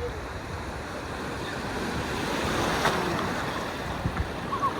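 Ocean surf: a wave builds and breaks, swelling to a rush of water about three seconds in before easing, with wind buffeting the microphone in low thumps.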